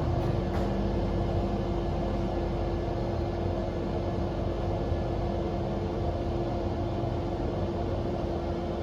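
Schindler traction elevator car travelling, heard from inside the cab: a steady hum with one constant tone over a low rumble.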